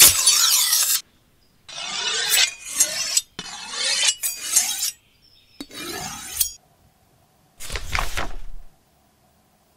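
A series of short rasping, rubbing and scraping noises, each cut off abruptly with a gap of silence before the next; the first is the loudest. Near the end comes a quick flick of notebook pages being riffled through.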